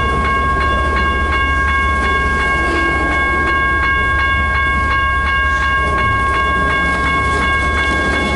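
Railroad crossing bell ringing steadily at about three strokes a second, over the low rumble of a CN mixed-freight train's cars rolling through the crossing.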